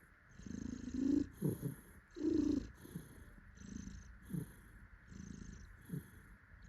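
Domestic cat purring contentedly, the rumble swelling and fading with each breath in and out, about one full breath every second and a half.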